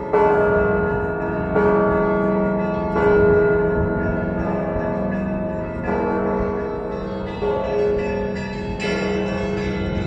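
Russian Orthodox church bells of the Cathedral of Christ the Saviour ringing the festive Easter peal: several bells of different pitches struck again and again, a heavy stroke about every second and a half, each ringing on over the others.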